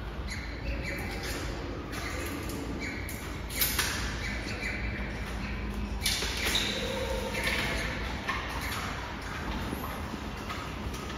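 Giant panda chewing bamboo: irregular crunches and cracks as it bites and grinds the stalk, with a few sharper snaps.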